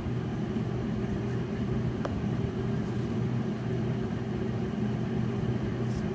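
Steady low hum of a motor or appliance running, with a faint tick about two seconds in and soft pen-on-paper scratching.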